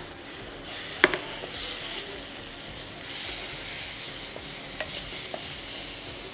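Vegetables and chopped tomato sizzling steadily in a frying pan while being stirred with a spatula. There is one sharp knock of the spatula against the pan about a second in, and two lighter taps near the end.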